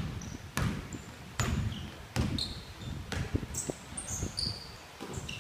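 Basketball dribbled on a gym's hardwood floor, a bounce about every 0.8 s, with short high squeaks of sneakers on the wooden court as players run.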